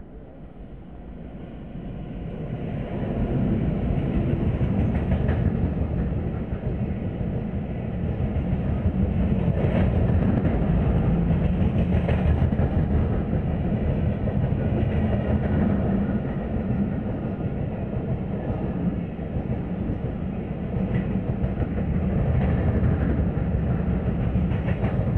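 Indian Railways intercity express running past an electric locomotive and passenger coaches. Its rumble builds over the first three or four seconds as the train draws near, then holds as a steady heavy rumble of steel wheels on rail, with clatter over the rail joints.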